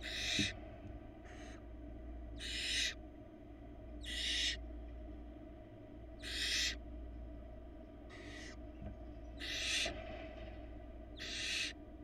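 Barn owl nestlings giving harsh hissing begging calls, each about half a second long, repeated roughly every one and a half to two seconds. A faint steady hum runs underneath.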